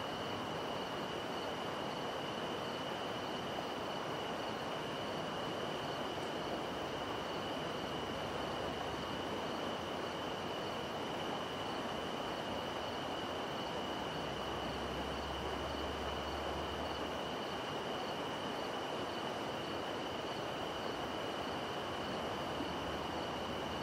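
Night insects calling in one steady, unbroken high drone, with a fainter pulsing call higher above it, over the even rush of a distant river.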